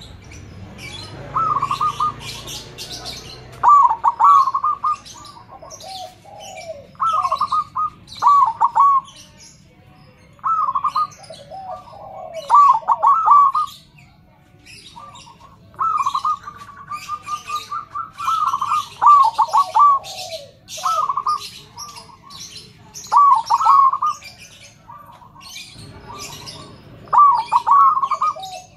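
Zebra dove (perkutut) cooing: phrases of quick, rolling coo notes repeated every few seconds. Higher chirps from other birds run through the background.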